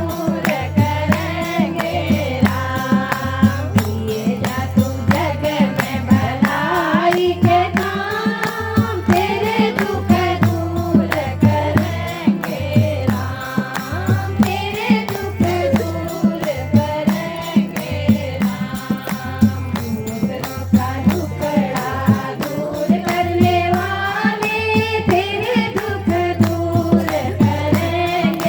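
A woman singing a Hindi devotional bhajan, her voice gliding through an ornamented melody, over a steady, fast hand-drum beat.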